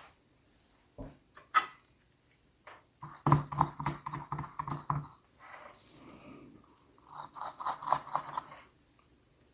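Soldering iron tip being jabbed and wiped in a brass wool tip cleaner: two runs of quick scratchy rattling strokes, about six a second, after a couple of sharp clicks.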